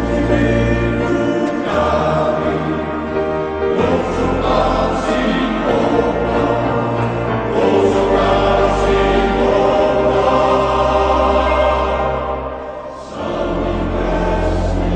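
Background music: a choir singing long held chords over a slow-moving bass, with a short drop in loudness near the end.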